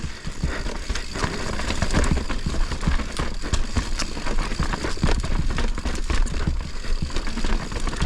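Mountain bike descending a rocky, chunky trail at speed: wind rumbling on the microphone, with tyres and frame clattering over rocks in many sharp, irregular knocks.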